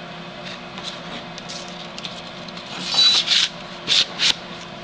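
Rubbing and scraping as a machete and its nylon sheath are handled on a table: light rustles, then two louder scrapes about three and four seconds in.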